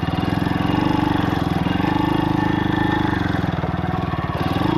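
Pit bike's YX 160cc single-cylinder four-stroke engine running under way with a rapid, even beat, its pitch rising and falling a little as the throttle changes.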